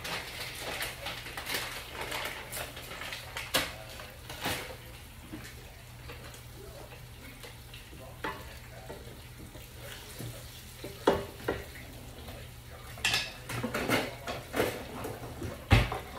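Utensils knocking and scraping against a frying pan as coated fish fillets are turned and stirred, with frying oil sizzling underneath. The sharpest clinks come in a cluster a little after halfway and once more near the end.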